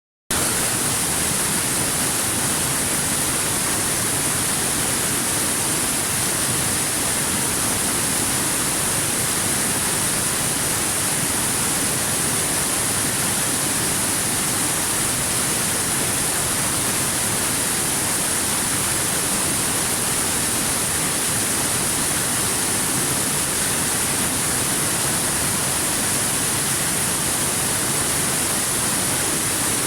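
Water falling and splashing in a river at close range: a steady, even rush of water, bright and hissy at the top.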